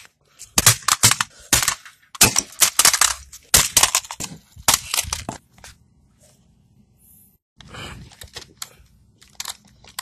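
A rapid series of sharp hard-plastic clicks and cracks from a PlayStation 4 DualShock 4 controller being gripped and worked by hand, thickest over the first half, then a short scraping rustle about eight seconds in and a few more clicks.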